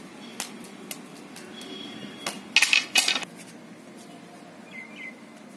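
Bamboo silambam stick being swung and handled by a small child, giving scattered light clicks and knocks, with one loud rattling clatter lasting about half a second a little past the middle.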